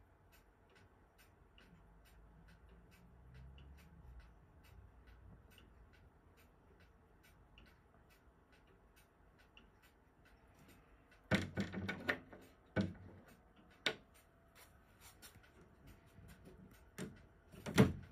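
An 18th-century carved oak eight-day longcase clock ticking faintly and evenly. About eleven seconds in come a cluster of loud wooden knocks and clunks, then two single knocks and another loud pair near the end, as the clock's wooden trunk door is handled and shut.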